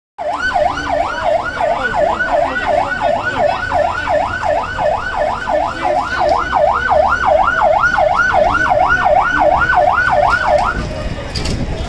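Emergency vehicle siren on a fast wail, sweeping up and down about two and a half times a second over a low rumble. It cuts off shortly before the end.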